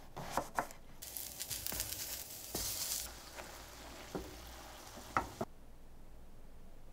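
Two sharp knife cuts on a wooden cutting board, then eggplant planks sizzling in a stainless steel frying pan, with a few sharp clicks in the sizzle. The sizzle cuts off suddenly about five and a half seconds in.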